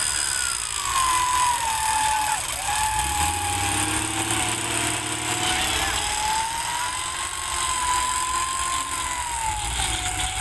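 Off-road 4x4 working with a single whining tone that drops in pitch over the first two seconds, then wanders slowly up and down. A low engine rumble runs underneath and swells for a couple of seconds around the middle.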